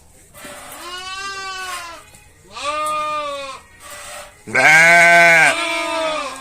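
Sheep bleating: about five separate wavering bleats at different pitches. The loudest and deepest comes about four and a half seconds in.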